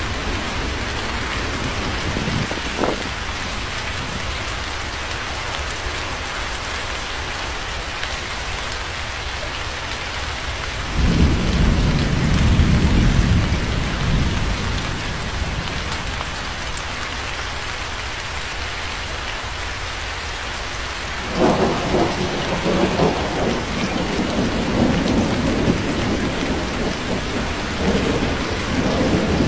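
Steady heavy rain falling, with rolls of thunder. The first low rumble comes about a third of the way in and fades over a few seconds. A second, more crackling peal breaks in about two-thirds of the way through and rumbles on to the end.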